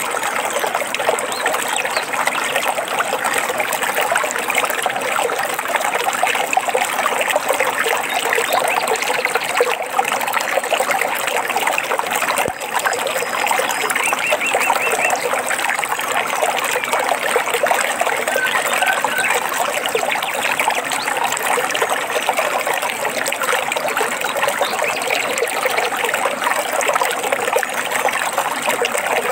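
Stream water running and trickling over stones, a steady unbroken rush. A few faint bird chirps come through it about halfway in.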